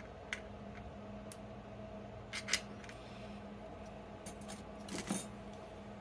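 Small metal clicks and clinks from handling a padlock and its parts while taking it apart: a few light single ticks, then small clusters of clinks about halfway through and near the end.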